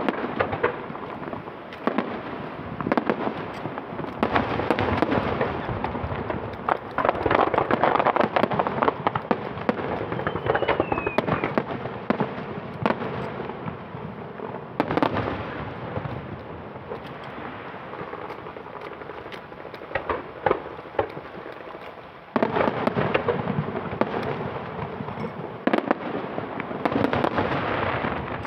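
Aerial fireworks display: shells bursting overhead in quick succession with repeated sharp bangs and dense crackling. A short falling whistle is heard about ten seconds in, and a fresh barrage starts abruptly about 22 seconds in.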